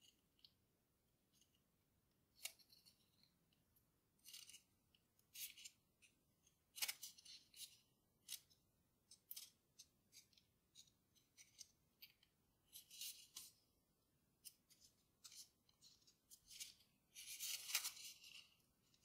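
A sheet of Grainy textured origami paper being folded and creased by hand: a faint, irregular string of crisp paper crackles and rustles, with a longer rustle near the end.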